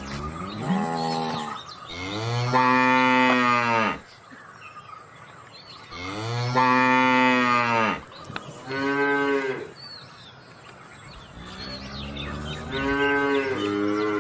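Cattle mooing, about five calls in a row: two long moos of about two seconds each, with shorter ones between and near the end.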